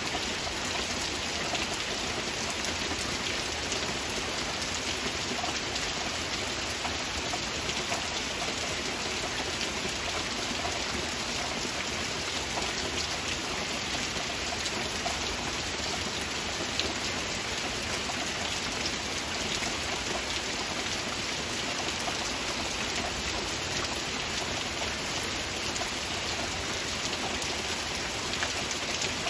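Heavy rain falling steadily: an even hiss with a dense patter of drops.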